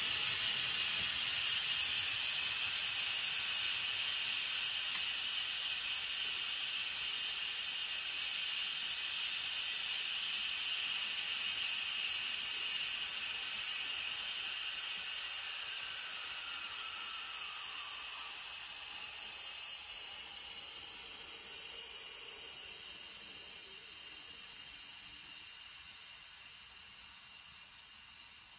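Steam hissing out of an Instant Pot electric pressure cooker's release valve during a quick release, slowly fading as the pressure inside the pot drops.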